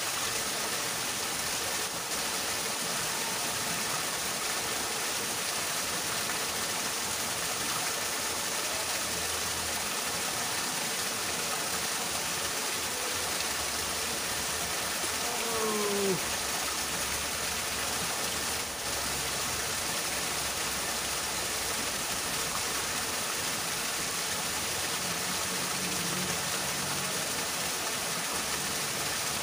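Steady rushing of a flowing river, with a faint, brief falling tone about halfway through.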